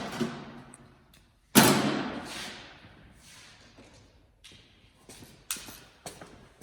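A single loud thump about a second and a half in, fading out over a second, then scattered lighter clicks and taps of hand tools and parts being handled during repair work.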